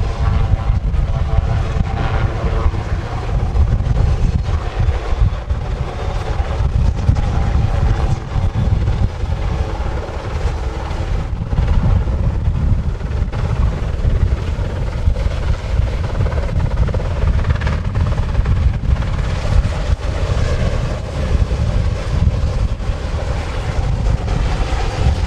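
A steady, loud low rumble of a running engine, with wind buffeting the microphone.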